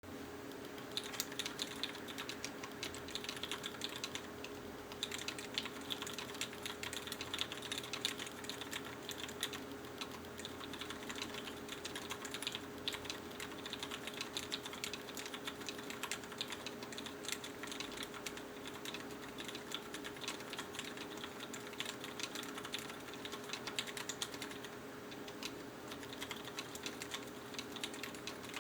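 Mechanical keyboard with vintage Cherry MX Black linear switches, lubed and fitted with 65 g springs, being typed on continuously at a quick, uneven pace.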